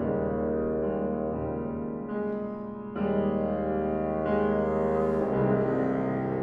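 Bassoon and piano playing a slow contemporary classical piece: long held bassoon notes over sustained piano chords, moving to new notes about three and five seconds in.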